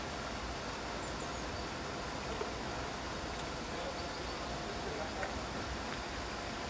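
Steady low rumble of a DB class 220 (V 200) twin-engined diesel-hydraulic locomotive idling at a distance while its train stands, with a few faint high chirps and small clicks.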